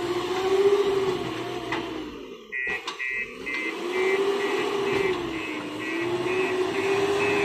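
JCB backhoe loader's diesel engine running, its pitch rising and falling as the revs change. After a short drop in sound about a third of the way in, its reversing alarm starts beeping steadily, a little over two beeps a second.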